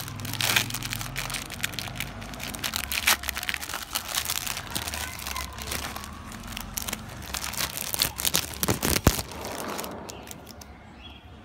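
Clear plastic packaging crinkling and crackling as it is handled and pulled open by hand, with one sharp crack about nine seconds in. The crinkling dies away about ten seconds in.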